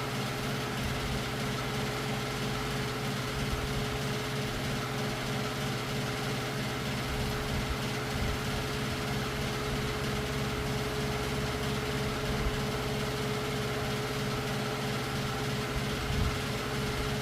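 Steady mechanical hum of a motor running in the workshop, holding one constant tone, with a couple of faint knocks near the end.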